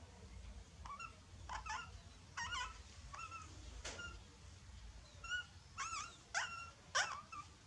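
Young puppies whimpering in a string of short, high, squeaky cries, a dozen or so, loudest near the end.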